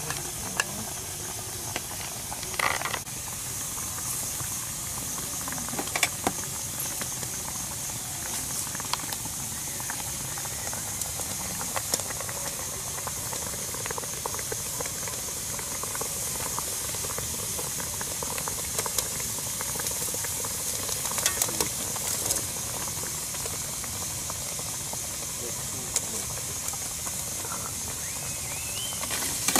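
Whole cabbage cooking in hot liquid in a large aluminium wok: a steady hiss with bubbling, and a few light clicks and knocks scattered through.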